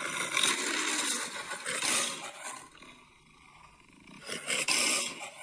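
Lion roar sound effect: a long roar starting suddenly and lasting about two and a half seconds, then a second, shorter roar about four seconds in.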